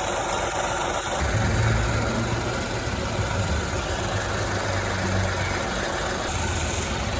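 Ford Ka three-cylinder engine idling steadily, with a low hum that grows stronger about a second in. The intermittent noise from its failing alternator pulley has apparently stopped for the moment.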